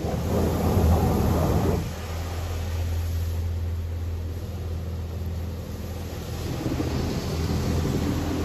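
High-pressure water spray from a WashWorld Razor Edge touch-free car wash hitting the car, heard from inside the cabin over a steady low hum. The spray is loudest for the first couple of seconds, then eases a little.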